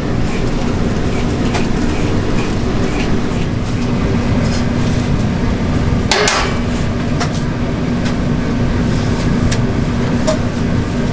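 Steady low machine hum with scattered clicks and knocks of work, and a louder scrape about six seconds in.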